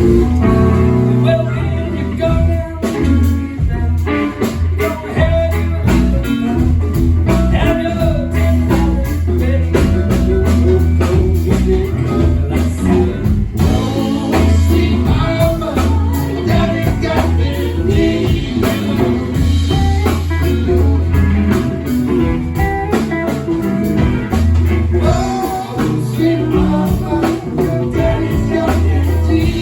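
Live band playing a bluesy rock number at a sound check: electric guitar, bass and drums, with a singer.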